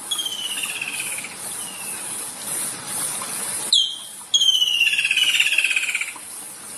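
A songbird singing: a fast trill that slides down in pitch, heard twice, the second phrase louder and starting about halfway through. A steady high hiss runs behind it.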